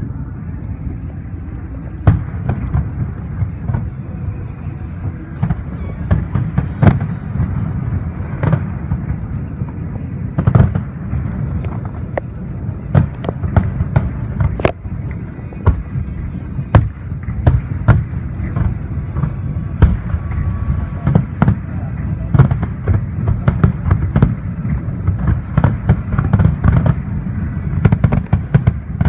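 Fireworks display: aerial shells bursting in quick, irregular succession, many sharp bangs over a continuous deep rumble.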